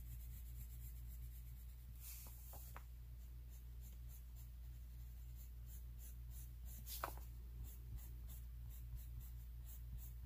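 Colored pencil scratching faintly on paper in quick, uneven shading strokes, over a steady low hum.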